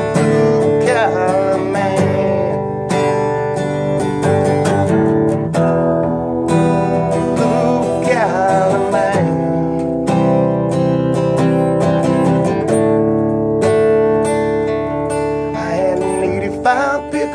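Acoustic guitar strummed steadily in a country song, with a few short wavering vocal notes over it.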